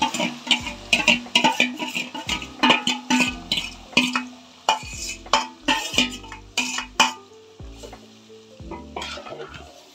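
A perforated steel spatula scraping and clinking against a steel plate and an aluminium pot as marinated chicken is scraped into hot oil and stirred, with some sizzling. The clinks come thick and fast for about seven seconds, then thin out. Background music with steady held notes plays underneath.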